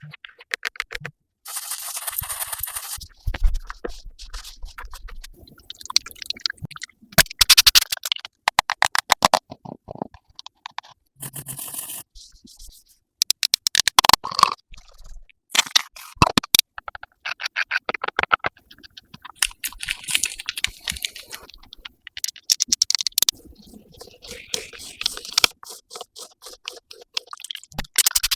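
ASMR tapping and scratching sounds: short runs of rapid clicks and scratchy strokes, each lasting a second or two, with brief pauses between them.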